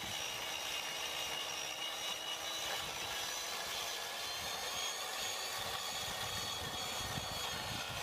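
Small chainsaw running steadily with its chain buried in a thick log, cutting down through the wood: a continuous high whine that holds its pitch throughout.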